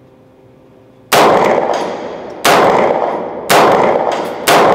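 Caracal CMP9 9mm submachine gun with the 5.5-inch barrel fired in semi-auto: four single shots roughly a second apart, the first about a second in. Each shot rings out with a long echo off the indoor range's walls.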